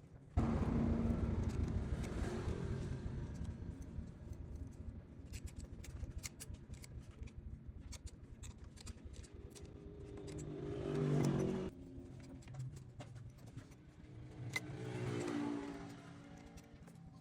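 Motorcycle engine starting and running, revved up twice near the end, with a rapid ticking over the running sound.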